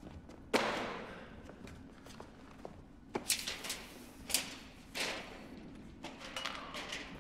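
A heavy thud as a metal table is set down, then several sharper knocks and clatters of objects handled on a steel counter.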